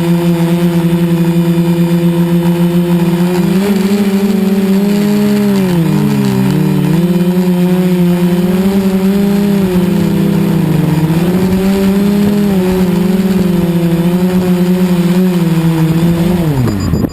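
Spyda500 quadcopter's four KDA 20-22L brushless motors humming in flight, the pitch wavering and dipping as the throttle changes. Near the end the pitch falls steeply as the motors spin down and stop.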